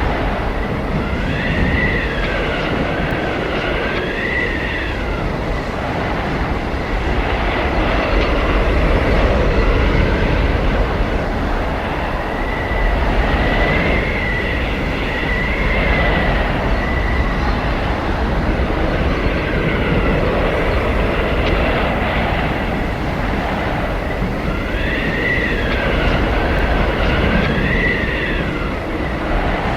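Howling blizzard wind: a steady, loud low rush of wind with high whistling howls that swoop up and down in pitch, coming back several times.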